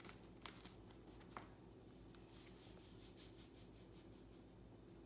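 Near silence, with a couple of faint light clicks and a faint fine trickle of salt pouring from a canister spout into a plastic measuring spoon.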